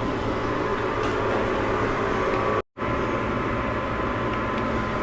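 Steady mechanical hum with a hiss over it, cutting out to silence for a moment about two and a half seconds in.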